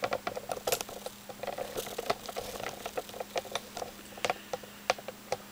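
Rapid, irregular small clicks and ticks, several a second, with a few sharper ones about a second in and past the four-second mark, over a faint steady hum.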